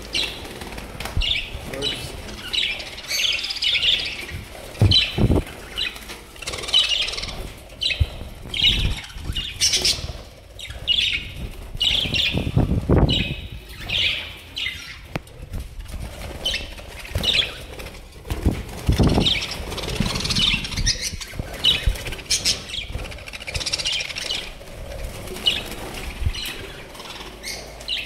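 Budgerigars in a wire aviary chirping in quick, repeated calls, with several bouts of wings flapping.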